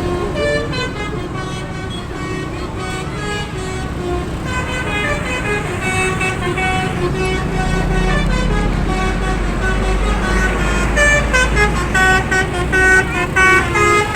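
Basuri multi-tone bus horn (telolet) playing a melody in stepped, tooted notes, which become short and clipped near the end. A bus engine's low rumble grows beneath it from about halfway.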